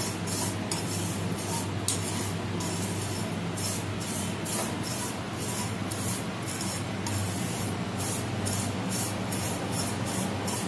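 Vermicelli roasting in hot ghee in a pan: a steady sizzle with a low hum beneath it.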